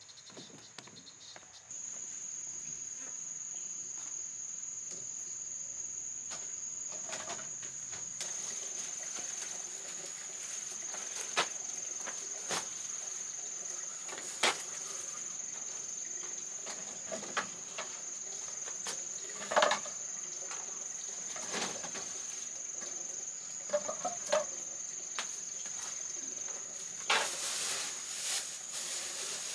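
A steady, high-pitched insect drone of crickets or cicadas sets in about two seconds in. Scattered sharp knocks and clicks sound over it, several of them near the end.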